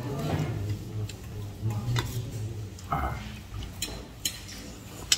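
A metal spoon clicking and scraping against a stainless steel bowl several times while eating, over a low steady hum.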